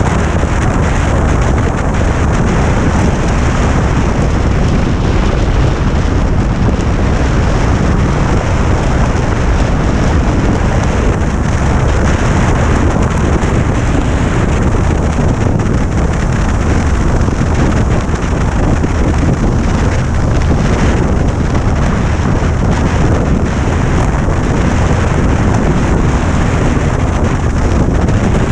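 Loud, steady wind noise on the camera microphone of a motorcycle riding at road speed, with the motorcycle's running sound underneath.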